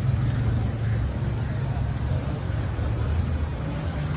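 Steady low engine rumble of a motor vehicle running, with faint voices in the background.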